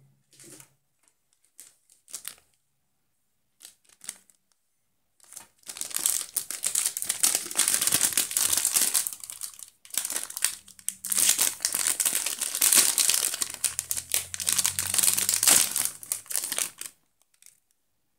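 Close crinkling and rubbing of paper or plastic, in two long stretches with a short break between them, after a few scattered clicks and scrapes.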